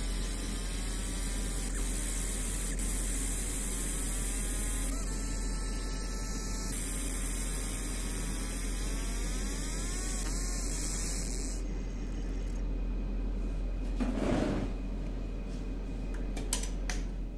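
Steady electrical hum, with faint whining tones that glide up and down in pitch during the first two-thirds.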